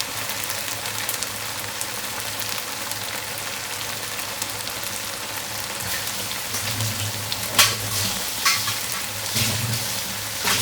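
Shrimp and vegetables sizzling steadily in a frying pan with a little added water, with a few sharp spatula scrapes against the pan in the second half.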